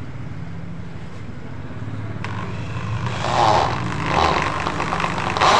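AEG SB 500 RE electric drill turning a 25 mm wood auger bit into a wooden plank. The bit bites in unevenly from about three seconds in, then the drill cuts steadily and much louder just before the end.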